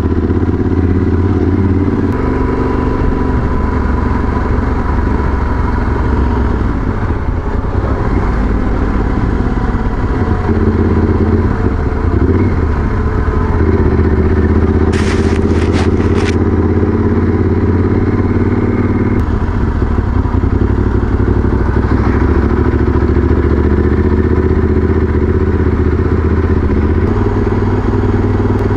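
Motorcycle engine running while riding, heard from on the bike, its note shifting in steps several times. A short cluster of sharp clicks about fifteen seconds in.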